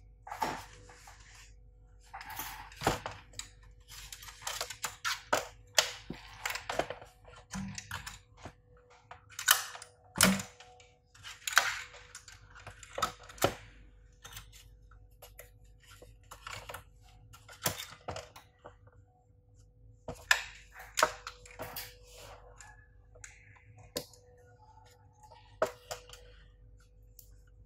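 Parts of an induction hob being handled during reassembly: irregular clicks and knocks of plastic housing, circuit board and metal chassis, with short rustles as wires are routed and fitted.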